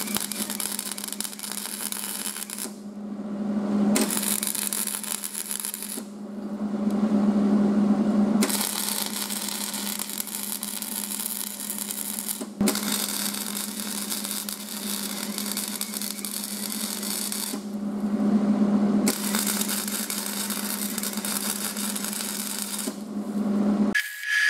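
Electric arc welding on steel square tubing: the arc crackles and sizzles in runs of a few seconds, stopping briefly three times between beads, over a steady low hum.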